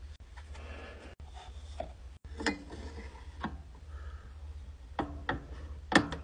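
Clicks and knocks of a cylinder record being slid onto the mandrel of a 1903 Edison phonograph and the reproducer lever being set, the sharpest knock near the end, over a low steady hum.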